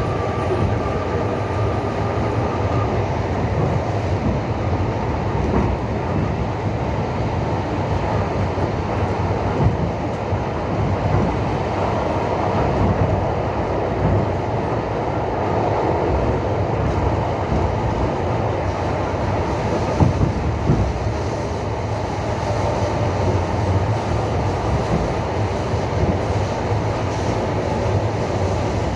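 Passenger train wheels clattering over the rail joints with a steady rumble, heard from inside the moving carriage. A few sharper knocks come about twenty seconds in.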